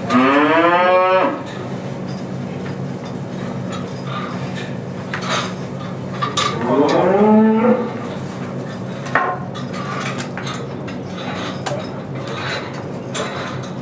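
A cow mooing twice. Two calls of about a second each, rising in pitch and some six seconds apart, over a steady low hum and scattered knocks.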